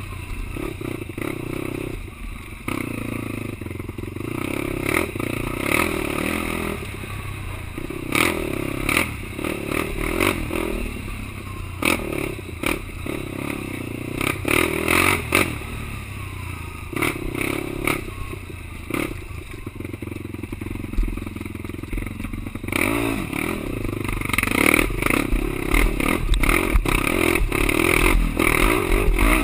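Quad (ATV) engine running under throttle, rising and falling, with frequent clattering knocks and scrapes throughout; the engine grows louder over the last few seconds.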